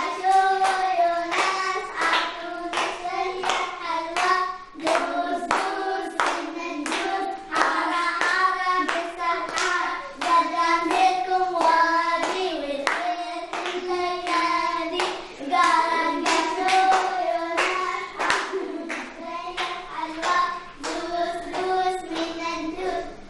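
Voices singing a repeating chant to steady hand claps, about two claps a second.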